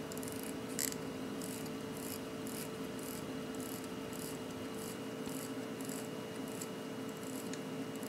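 Sekonda mechanical alarm wristwatch, with a Poljot 2612 alarm movement, sounding its alarm: a high-pitched buzz in short pulses about twice a second.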